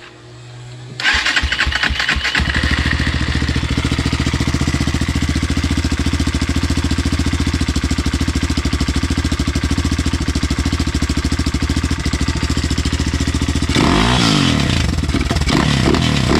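BSE TTR250 enduro motorcycle's single-cylinder four-stroke engine starting after carburettor work: it catches about a second in, settles into a steady idle, then is revved up and down a few times near the end.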